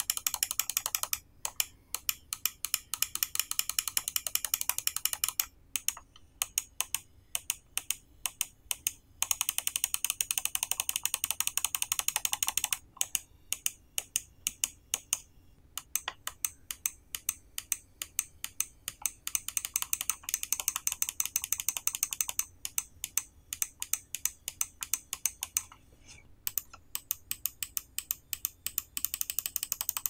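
Fast runs of sharp clicks from a gaming mouse's left button, pressed over and over. It is fitted in turn with different Kailh micro switches: the GM 8.0 at first, the GM 2.0 teal by the middle, and the Kailh White Dot near the end.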